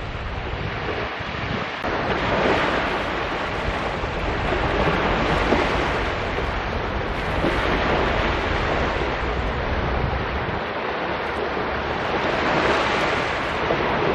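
Small sea waves breaking and washing up a sandy, shell-strewn beach, the surf swelling and easing every few seconds, with wind rumbling on the microphone.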